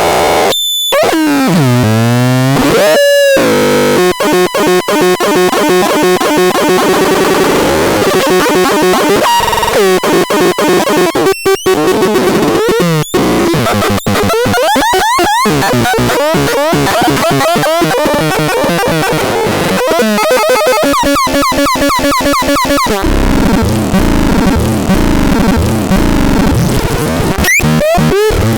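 KANTAZON synthesizer playing harsh, glitchy electronic tones: swooping pitch glides, then fast stuttering, buzzing textures that turn noisier about two-thirds of the way through.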